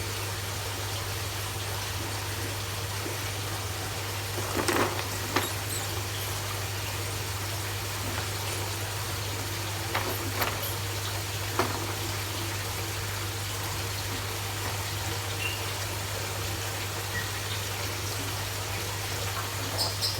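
Steady rushing noise with a constant low hum, broken a few times by short clicks and knocks.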